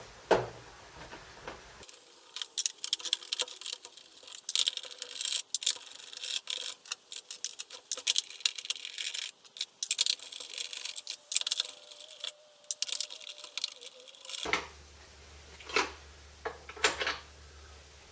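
T20 Torx screws being undone from a Karcher K2 pressure washer's plastic housing, with a dense run of small clicks, scrapes and screws clinking. It stops about two-thirds of the way through, followed by a few separate knocks near the end.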